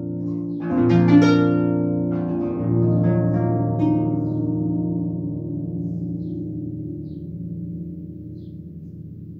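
Concert pedal harp playing a few plucked chords, about one, two and four seconds in, then the strings ringing on and fading slowly away.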